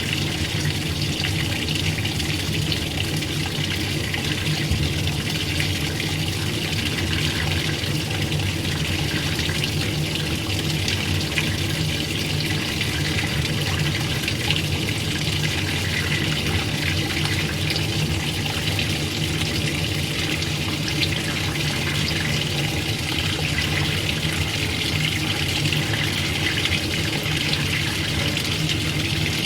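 Washing machine running with water: a steady rush of water and a low motor hum, unchanging throughout.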